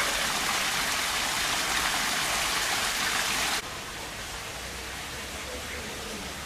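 Steady, loud hiss of rushing water that cuts off abruptly about three and a half seconds in, leaving a quieter steady background hiss.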